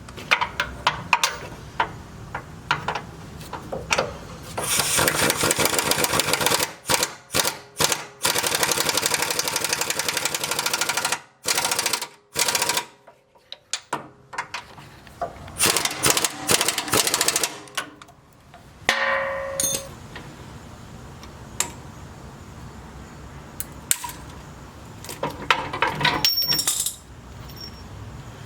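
Pneumatic impact wrench hammering in several bursts of a few seconds each, driving shock mounting bolts, with sharp metal tool knocks and clinks in between.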